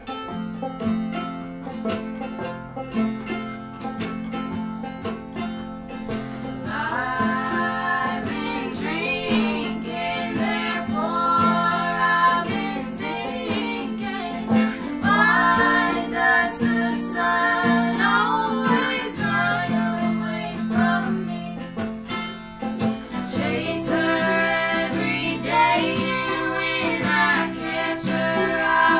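A small acoustic string band of mandolin, acoustic guitar and banjo playing a bluegrass-style tune; women's voices come in singing in close harmony about seven seconds in.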